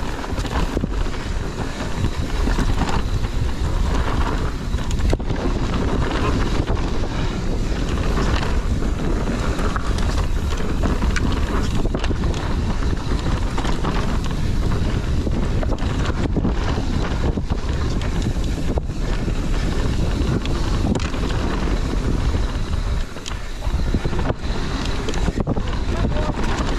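Wind buffeting the microphone and tyres rolling over a dirt trail as a mountain bike descends at speed, with scattered knocks as it hits bumps.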